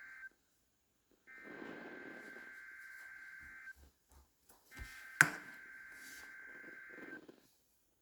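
EAS SAME header sent three times over NOAA Weather Radio: three warbling data bursts of about two and a half seconds each, a second apart, opening the Required Weekly Test. A sharp click sounds about five seconds in.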